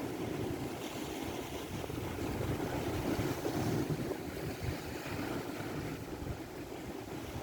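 Strong wind buffeting the microphone, a steady low rumble over a rush of sea water.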